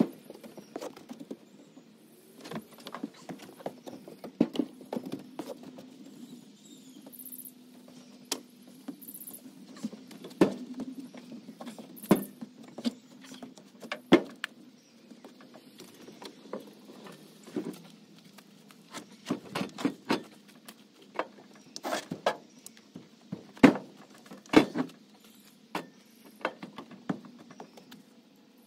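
Scattered clanks, knocks and rattles of hand work on a pontoon boat deck, as parts, tools and a boat battery are moved about, in irregular bursts with the loudest knocks spread across the middle and late part.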